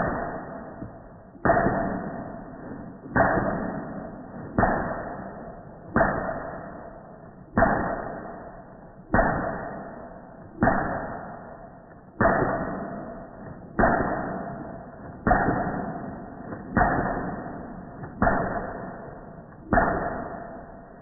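Suppressed Glock 17 firing supersonic 9mm, heard slowed down and lowered in pitch in slow-motion playback. Fourteen drawn-out booms come about every one and a half seconds, each fading slowly with a steady ringing tone in it.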